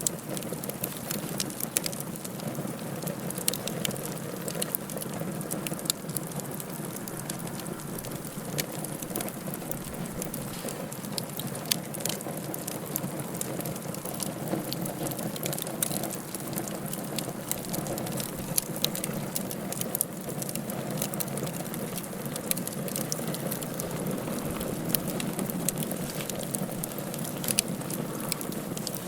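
Fireplace fire burning: a steady rush with frequent sharp crackles and pops scattered throughout.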